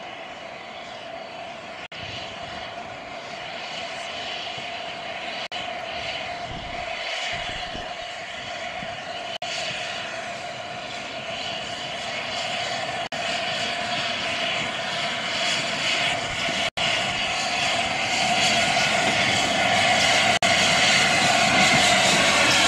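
LNER A4 Pacific steam locomotive and its coaches passing close by, a steady rushing hiss with a held tone, growing louder as the train draws past.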